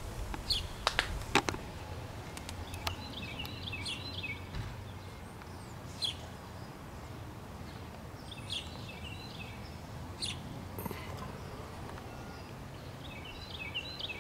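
A songbird repeating a short phrase of quick chirps, with a high arched whistle, three times about five seconds apart. A few sharp clicks in the first second and a half are the loudest sounds.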